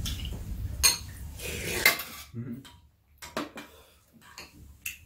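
Metal spoons and chopsticks clinking against ceramic bowls during a meal: two sharp clinks about one and two seconds in, then several lighter taps.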